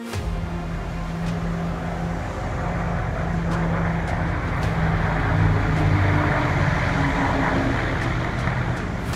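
Sound-effect layer of ships under way at sea: a steady low engine drone under a loud rushing wash of water and wind, swelling slightly around the middle.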